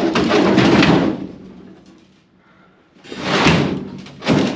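Sheet-metal floor panel scraping and clanking against the car body as it is forced into a tight fit. A sharp hit opens a second of scraping and banging; a second bout comes about three seconds in, and a short knock follows near the end.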